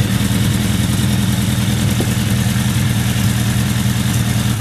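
Suzuki GSF1200 Bandit's inline-four engine idling steadily through an aftermarket Devil muffler.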